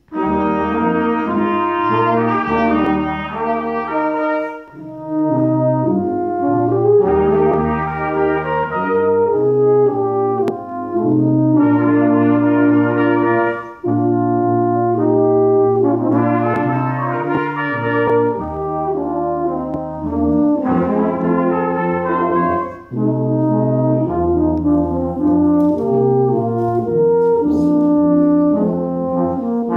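Brass quintet of two trumpets, French horn, trombone and tuba playing sustained chords together, entering at once at the start and moving in phrases separated by brief breaths.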